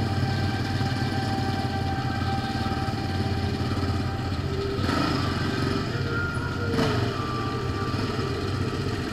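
ATV engine running steadily under the rider, with two short knocks, about five and about seven seconds in.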